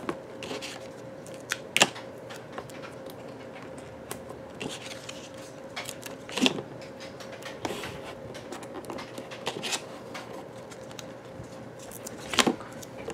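Handling of paper and cardboard: scattered rustles and sharp clicks as adhesive foam squares are peeled from their backing papers and pressed onto a cardboard base, over a faint steady hum.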